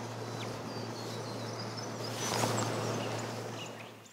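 Outdoor lakeside ambience: small birds chirping now and then over a steady low hum and hiss of background noise, which swells briefly a little over two seconds in.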